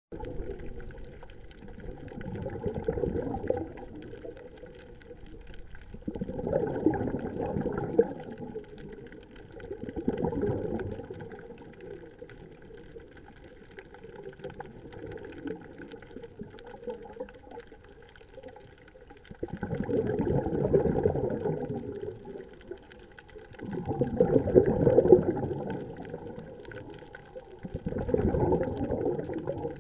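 Scuba diver exhaling through a regulator, heard underwater: bursts of bubbling a second or two long, six in all, a few seconds apart with a longer pause in the middle.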